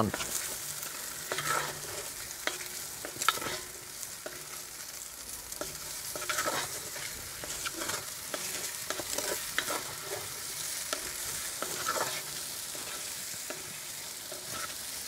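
Schupfnudeln (potato noodles) sizzling in hot butter and oil in a cast-iron Dutch oven. A utensil scrapes and clicks against the pot at irregular moments as they are stirred.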